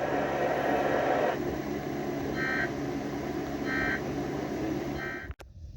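Three short, high electronic beeps, evenly spaced about a second and a half apart, over a steady rushing hiss that is louder for the first second or so. Near the end the sound cuts off abruptly with a click, leaving only a faint hum.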